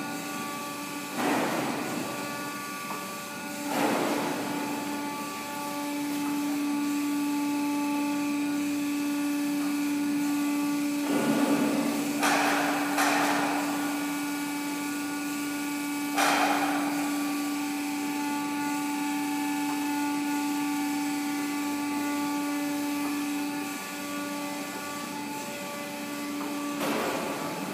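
Delta TP 750/500 surface grinder running without cutting: a steady motor hum with a clear whine that strengthens a few seconds in and drops away about four seconds before the end. Several sharp knocks stand out above it.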